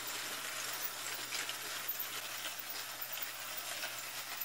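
Thumler's rotary tumbler running wet: a steady motor hum under a constant swishing rattle of brass cases and stainless steel pins churning in soapy water inside the turning rubber-lined drum.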